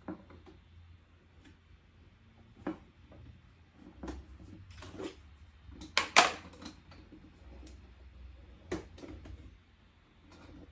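Scattered clicks and knocks of pressure washer parts and hose fittings being handled and connected, with a loud double knock about six seconds in.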